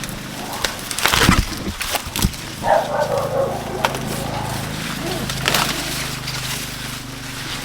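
Corn stalks cracking and snapping as ears are broken off by hand, a few sharp snaps spread over several seconds, with rustling and a steady low hum underneath.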